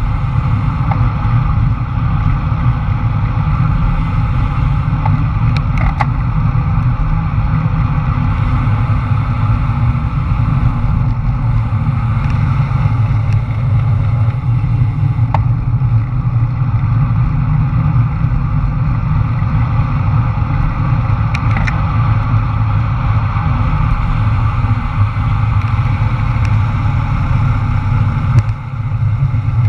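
Steady wind rush buffeting the microphone of a camera on a road bike descending at speed.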